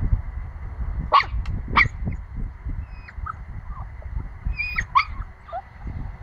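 Nine-week-old pomsky puppy yapping: two sharp, high-pitched yaps about a second in, a few faint whines, then another pair of yaps near five seconds.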